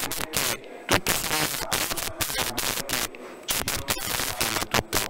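Dense, irregular crackling and rapid clicking static that fills the sound, a corrupted or faulty audio signal.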